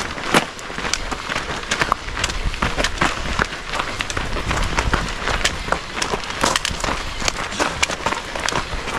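Trail runner's footsteps: irregular sharp clicks and crunches, several a second, over a low rumble.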